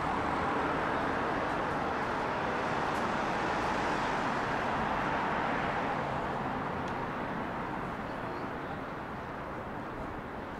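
City street ambience: a steady hiss of road traffic, easing off slightly after about six seconds.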